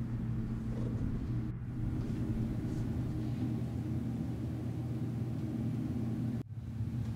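A steady low hum of a few held low tones, with a brief sudden dip about six and a half seconds in.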